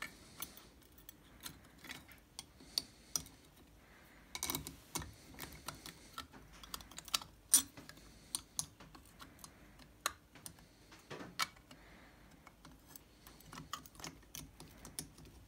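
Small ratcheting wrench clicking in short, irregular spells, with light metal clinks, as a nut is tightened on a threaded rod to pull a rocker arm shaft out of a cylinder head.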